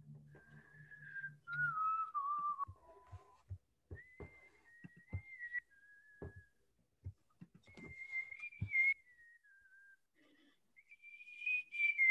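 A person whistling a wandering tune in short held notes with pauses between phrases, some notes stepping down in pitch about two seconds in, with scattered light clicks.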